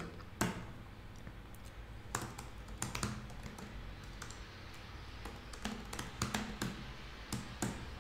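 Typing on a computer keyboard: separate keystroke clicks at an uneven pace, with short pauses between bursts.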